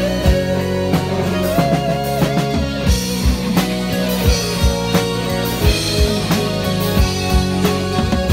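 Live rock band playing, with electric guitars and bass over a drum kit that keeps a steady beat, about three hits every two seconds.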